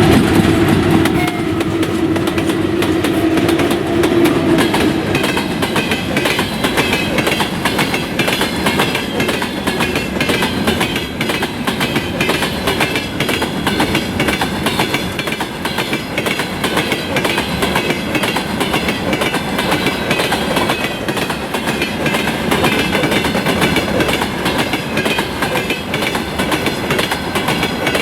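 Freight train rolling past, with a continuous rhythmic clickety-clack of wagon wheels over the rail joints. A steady hum is heard at first and fades out after about four seconds.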